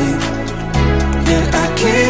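Background music, a pop track with a bass line, a wavering melody and a steady beat.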